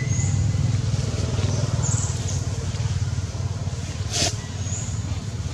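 A steady low engine hum, with a few faint, thin high chirps over it and a single sharp click about four seconds in.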